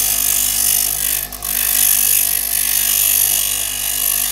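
Power grinder's abrasive wheel grinding down the threads of a steel wood screw, a steady harsh hiss over the motor's hum that breaks off for a moment about a second in. The screw is being ground into a thread-cutting tap.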